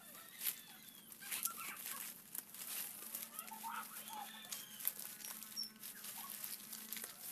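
Fresh green coconut palm leaves rustling and crackling in short, irregular bursts as the woven nest is handled and shaped.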